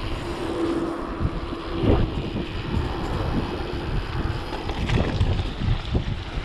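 Wind buffeting the microphone as a full-suspension mountain bike runs fast downhill over rough trail, with its rattle and thumps over bumps and a couple of sharper knocks, about two and five seconds in.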